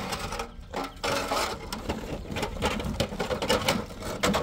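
Repeated clattering and scraping of building tools and a metal frame against gravel and concrete block: a string of short knocks and scrapes.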